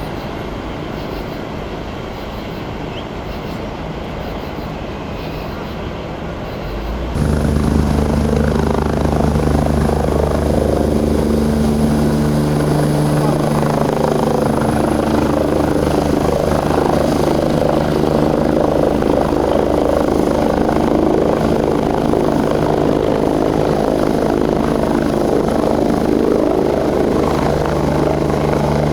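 A steady, heavy engine drone that comes in abruptly about seven seconds in and holds an even pitch, over a background of voices and road noise.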